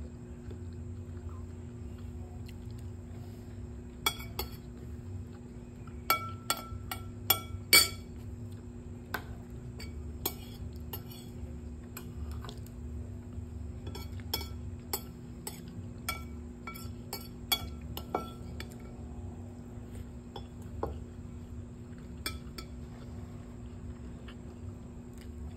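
Cutlery clinking and scraping against a ceramic plate as a knife and spoon cut and scoop food, in scattered sharp clicks with a close run of clinks about six to eight seconds in. A steady low hum runs underneath.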